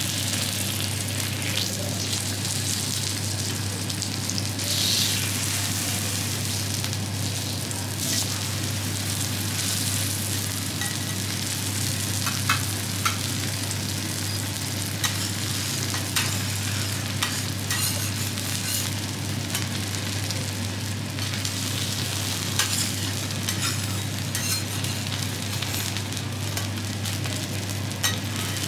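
Wagyu steak sizzling steadily as it sears on a hot teppanyaki steel griddle, with a steady low hum underneath. Occasional sharp clicks break through from about halfway on.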